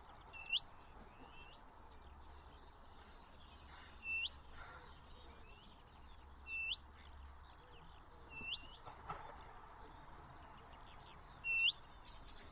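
Wild backyard birds calling: one bird repeats a short, sharp, high note about every two seconds, with fainter chirps from others in between, over a steady faint hiss of outdoor background noise.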